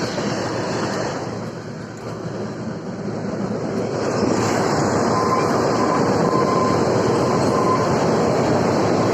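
Kalka–Shimla narrow-gauge toy train running on the track: a steady rumble of wheels and carriages that grows louder about four seconds in, with a faint on-and-off wheel squeal.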